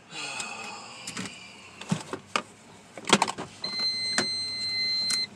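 A driver getting out of a car: a short whir, then several clicks and knocks from the seatbelt, door latch and door. About three and a half seconds in, the car's steady high warning beep sounds for about a second and a half and then cuts off.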